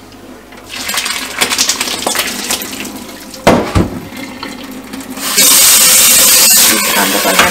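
Water splashing with metal clatter in a stainless steel sink, a sharp metal knock about three and a half seconds in, then the kitchen tap turned on at full flow, running loudly into the steel sink.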